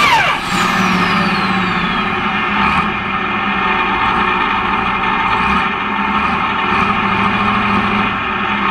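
Light pro pulling tractor's diesel engine coming off full throttle at the end of a pull: its pitch drops sharply within a fraction of a second, then it runs at low speed while a high whine winds down over about two seconds.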